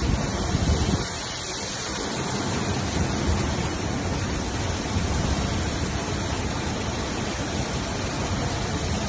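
Steady rushing noise of a windstorm, a broad hiss with a low rumble, holding at an even level with no thunderclaps.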